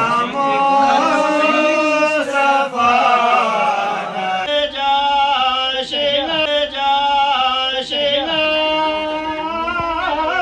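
Male chanting of a qasida, a devotional poem recited in a slow melodic chant with long held, wavering notes.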